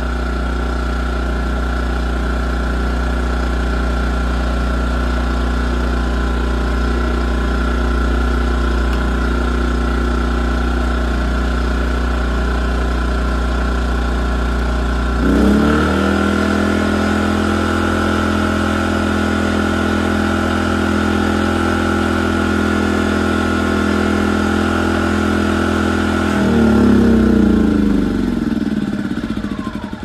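Small four-stroke engine of an A-iPower SUA2000 inverter generator running steadily. It has been repaired by cleaning its clogged carburettor main jet and is now running without load. About halfway through, the engine note shifts to a different steady speed; near the end it briefly rises, then dies away.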